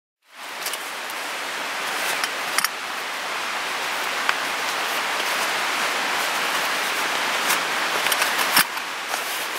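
Steady rush of a nearby mountain stream, with soft rustles and a few small clicks as a canvas drawstring pot bag is opened by hand.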